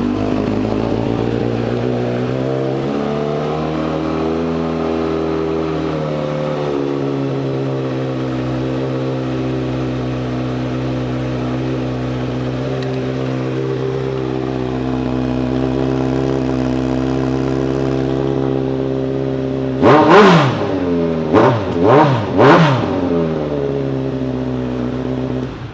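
2019 Kawasaki Z900's inline-four engine, breathing through an aftermarket Delkevic exhaust, idling just after start-up, its idle settling slightly lower a few seconds in. Near the end the throttle is blipped four times in quick succession, each rev rising and falling back to idle.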